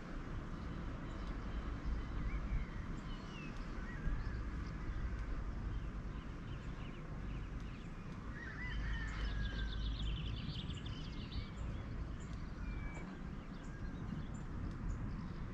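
Birds chirping and trilling, with a busier run of calls about two-thirds of the way in, over a steady low rumble.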